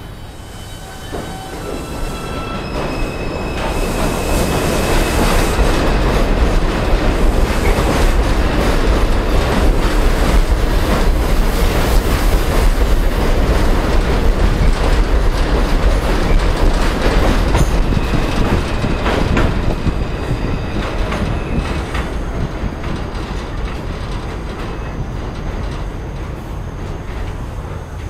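R142 subway train pulling out of an elevated steel-structure station. It starts with a short series of electric motor tones that shift pitch in steps. Then the cars rumble and clatter past with some wheel squeal, loudest in the middle, and the sound fades as the train leaves.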